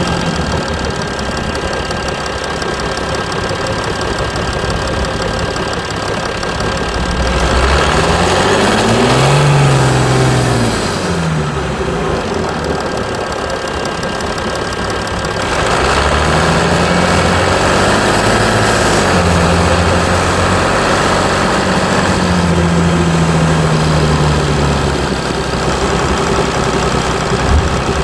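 Mercedes E320 CDI V6 diesel engine running. Its revs climb and drop back about 8 to 11 seconds in, then climb again and hold higher for most of the second half before settling back near the end.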